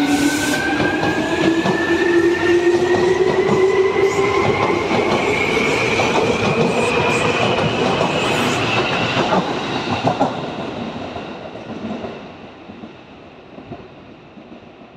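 Seibu 2000 series electric train pulling away from the platform: its motors whine with a tone that climbs steadily in pitch as it speeds up, while the wheels clack over the rail joints. The sound fades out after about ten seconds as the train moves off.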